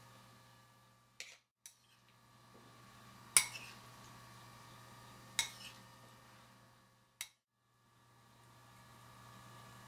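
A few sharp clinks of a spoon against metal muffin tins and bowls, the loudest about a third of the way in, over a steady low hum. The sound cuts out completely twice for a moment.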